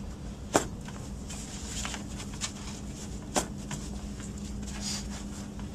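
Plastic C-clips on a Graco Pack 'n Play bassinet netting snapping onto the playard's top rails: two sharp clicks, the louder about half a second in and another a little over three seconds in. Soft handling rustle comes between them.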